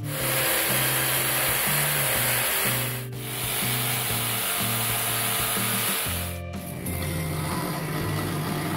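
Electric jigsaw cutting through a wooden board with a steady rasping hiss, over background music. It breaks off briefly twice. After about six and a half seconds a scroll saw is heard cutting instead.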